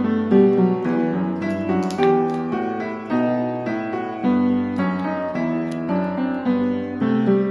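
Background piano music: a gentle run of single notes and chords at an even pace.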